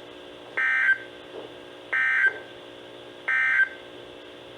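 NOAA Weather Radio SAME end-of-message data bursts: three short digital bursts about 1.3 s apart, marking the end of the alert, with a faint steady hum between them.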